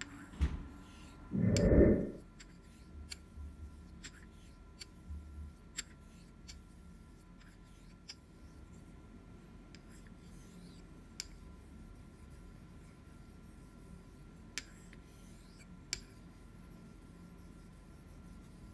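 Iwasaki tamahagane straight razor stroked back and forth across a wet Nakayama kiita natural whetstone with tenjyou nagura slurry: a faint, even scraping, broken by occasional sharp clicks. A brief, louder thump about one and a half seconds in.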